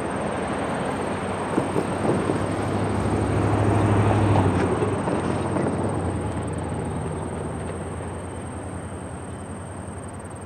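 Rumble of a long freight train's cars rolling on the rails as its rear autoracks pull away. A few sharp knocks come about two seconds in. The noise swells to its loudest a little later, then fades steadily as the train recedes.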